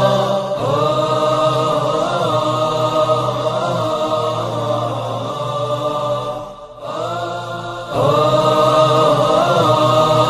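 Background music: a chanted vocal melody of long held notes. It fades and breaks off briefly past the middle, then starts again.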